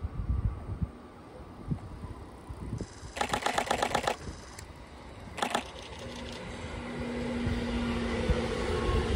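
Camera shutters firing in fast continuous bursts, a long one about three seconds in and a short one about two seconds later. Then a JR E127 series electric train approaching and running past, its motor hum and wheels on the rails rising in level over the last few seconds.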